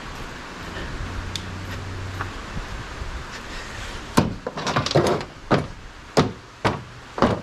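A magnet on a stick knocking against scrap steel on a steel ute tray: about seven sharp clacks in the second half, irregularly spaced, as small steel pieces snap onto the magnet.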